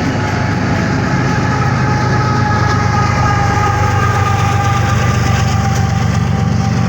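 An empty BNSF coal train rolling past, a steady rumble that grows heavier about three seconds in, with several steady high tones held over it.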